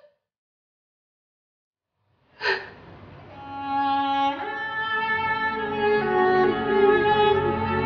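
Silence for about two and a half seconds, then background music led by a violin over other bowed strings starts sharply and swells with long held notes.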